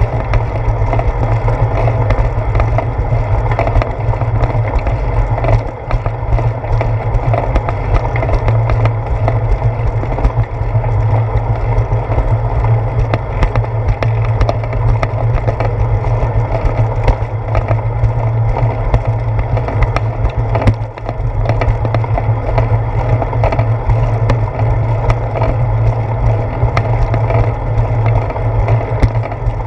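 Bicycle rolling over a concrete sidewalk, picked up through a seat-post-mounted GoPro: a loud, steady low rumble of tyre and frame vibration with a constant patter of small rattles and clicks, briefly easing twice.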